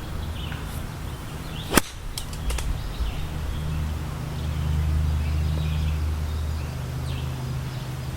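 A golf club striking the ball once, a sharp crack about two seconds in, followed by a couple of faint ticks. Wind rumbles steadily on the microphone.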